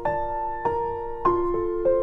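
Background music: soft piano playing a slow run of single notes, each struck and left ringing, about one every half second or so.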